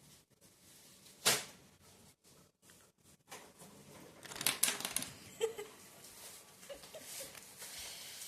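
Small laser-cut plywood parts of a ROKR marble-run kit being handled and pressed together: one sharp click about a second in, then a cluster of light clicks and rustling around the middle, with a few softer clicks later.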